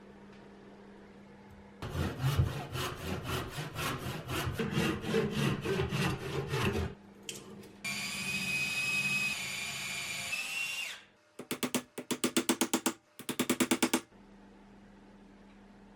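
Tool work on an old forged hatchet: about five seconds of fast, even strokes, then a power tool running with a steady high whine that cuts off, then two runs of rapid short pulses.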